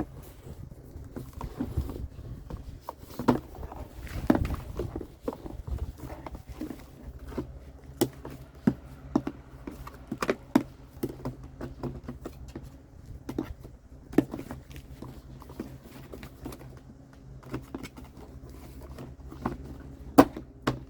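Plastic housing parts of a backpack vacuum being handled and fitted together: scattered light clicks, knocks and rubbing, with two sharp clicks near the end as the bottom unit seats.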